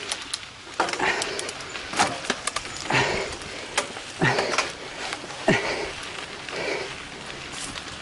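A person breathing hard and rhythmically, a loud exhale about once a second, several of them voiced with a short falling groan. Sharp clicks and rattles are mixed in.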